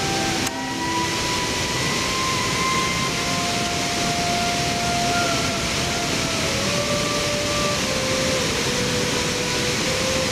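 Steady rushing roar of heavy water pouring over a sabo dam's concrete crest, its flow swollen by rain. Soft background music of long held notes that change pitch every second or two runs under it.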